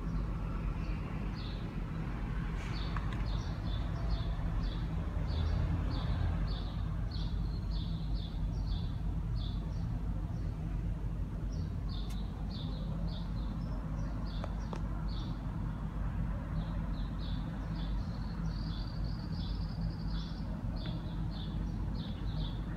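A small bird chirping over and over, short high chirps at about two a second with a brief pause about halfway through, over a steady low background hum.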